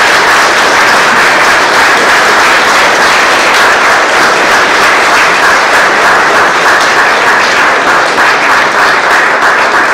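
Audience applauding: many hands clapping loudly and steadily.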